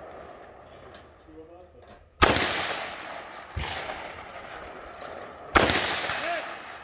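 Three gunshots from a shoulder-fired long gun, about a second and a half apart, each with an echoing tail; the middle shot is quieter than the other two.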